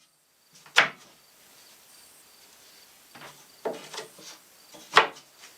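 Plywood cabinet doors with hidden wooden latches being worked open and shut: a sharp wooden click about a second in and another near the end, with softer knocking between. Insects chirp faintly in the background.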